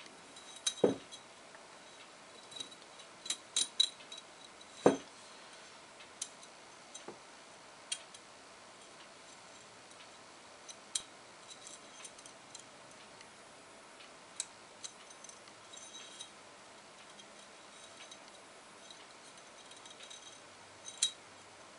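Light, irregular metallic clicks and ticks as a thin steel oil-ring rail is spiralled by hand into the oil-ring groove of a Wiseco forged aluminium piston. The sharpest clicks come near the start and about five seconds in.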